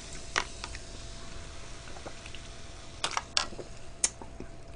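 Four faint, sharp clicks spread over a few seconds, over quiet room tone with a faint steady hum.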